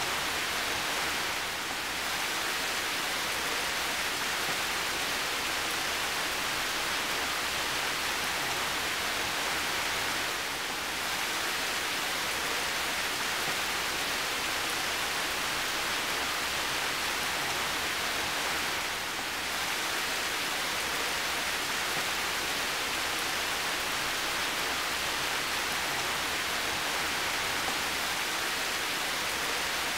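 Heavy rain falling steadily: a dense, even hiss that dips slightly for a moment three times.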